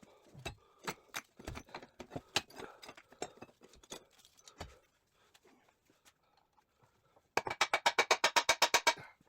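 Hammer striking a steel pin punch to drive a stuck pin out of a Triumph TR6 gearbox. Scattered metal clinks and knocks, then, about seven seconds in, a quick run of about fifteen ringing metal strikes at roughly ten a second.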